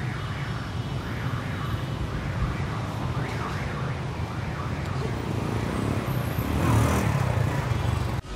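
Small motor scooter engines running as two scooters ride slowly up, getting louder as one passes close near the end. A warbling sound repeats about twice a second in the background through the first half.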